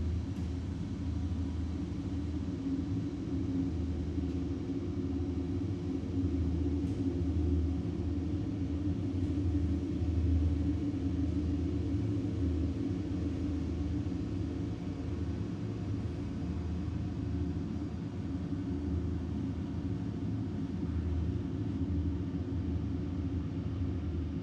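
Empty factory room ambience: a steady low rumble and hum with a faint hiss above it, swelling a little around the middle.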